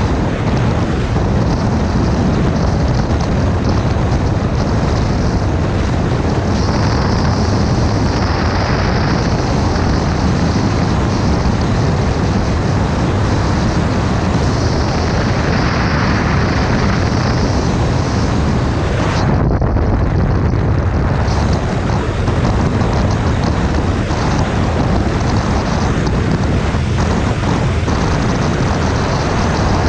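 Wind rush on the microphone over the steady drone of a KTM 390 Adventure's single-cylinder engine, cruising at a constant highway speed of about 110 km/h.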